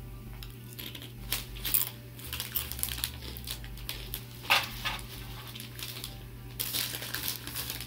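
Crunching of thick-cut kettle-cooked potato chips being chewed, with the chip bag rustling as a hand reaches in for more.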